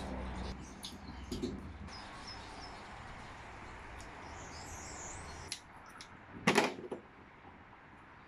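Crayfish shell cracking as the tail is twisted and broken off by hand, with one short loud crunch about six and a half seconds in. Faint bird chirps sound in the background, and a low hum stops shortly before the crunch.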